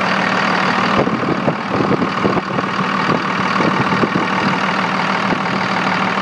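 Cummins 24-valve 5.9 L ISB turbo-diesel inline-six idling steadily and smoothly, heard close up under the open hood beside the Holset turbo, its valves freshly adjusted. A few scattered clicks sound over the idle between about one and five seconds in.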